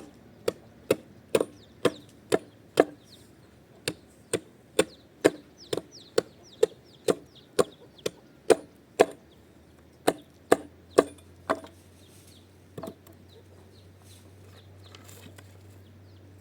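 Sharp chopping blows struck at a steady pace of about two a second, stopping about two-thirds of the way through, with one last blow a second later.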